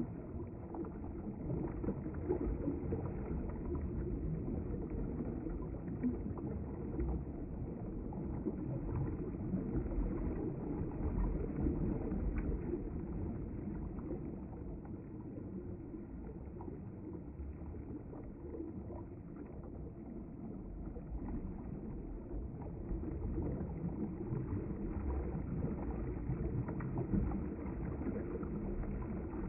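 River water flowing, a steady rushing noise that swells and eases a little.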